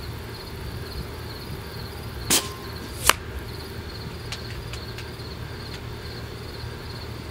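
Benjamin Marauder .25 pre-charged pneumatic air rifle firing one shot at the laptop target: a short pop about two seconds in, followed under a second later by a sharper, louder crack, then a few light clicks. Crickets chirp steadily in the background.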